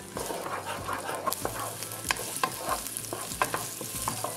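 Diced red onion sizzling in olive oil in a non-stick frying pan on medium heat, stirred with a wooden spatula. A steady hiss with frequent sharp crackles and taps of the spatula against the pan.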